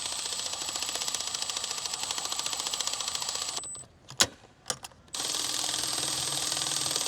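Power ratchet running in two bursts, a fast even clicking over a high steady whine: the first run stops a little past the middle, a few sharp clicks follow, and it starts again about five seconds in.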